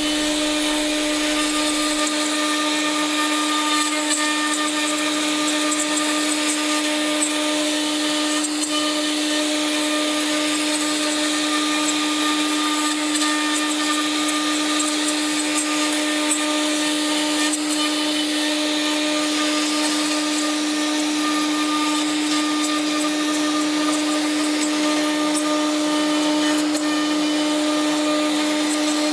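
Lih Woei LH-8101 CNC wood router running, a steady hum held at one unchanging pitch over a hiss.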